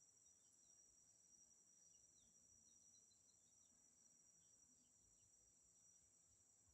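Faint, steady, high-pitched insect chorus, with a few faint short chirps over it.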